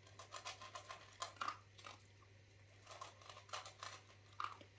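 Dog eating dry kibble from a metal bowl: irregular crunching and bites in two spells, with a pause of about a second between them.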